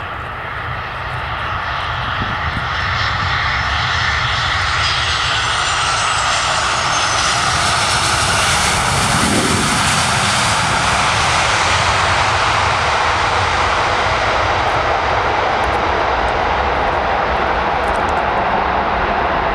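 Boeing 737-800's CFM56 jet engines as the airliner lands and passes close by. A rising rush with a high whine falls in pitch as it goes past about halfway through, then a steady loud rumble continues as it rolls down the runway.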